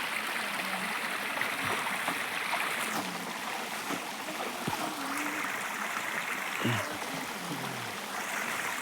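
Stream water running steadily, with faint voices a few times in the middle.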